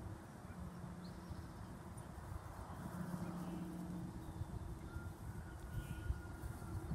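Faint outdoor ambience: a steady low hum under soft, irregular rustling, with a brief high chirp about a second in.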